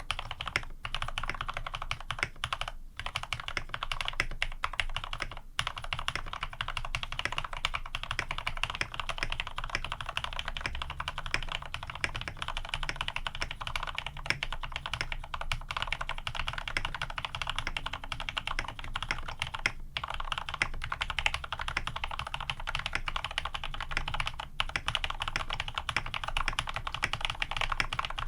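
Continuous fast typing on an AR87 mechanical keyboard fitted with lubed Cherry retooled black-housing switches with cream stems, 70 g springs, an aluminium plate and PBT keycaps: a dense, steady run of keystroke clacks, broken by a few brief pauses.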